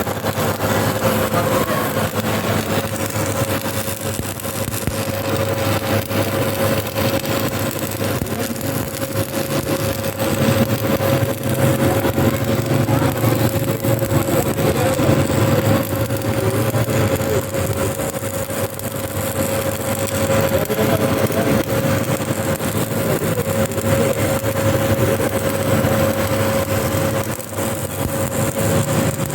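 A machine running steadily, with a constant mid-pitched whine over a low rumble.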